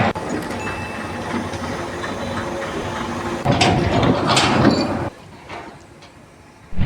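Steady mechanical rumble, growing louder a little past three seconds and cutting off sharply about five seconds in; one short thump near the end.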